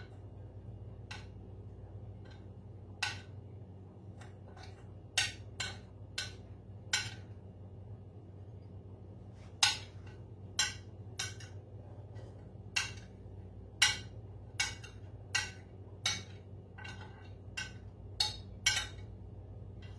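A metal spoon clinking and tapping against a ceramic dish and plate as food is spooned out: sharp, irregular clinks, about two dozen, coming thicker in the second half after a short pause. A low steady hum runs underneath.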